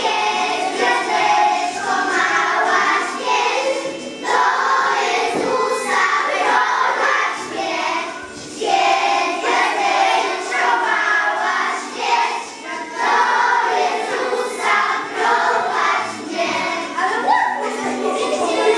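A group of young children singing together as a small choir, in phrases broken by short pauses about every four seconds.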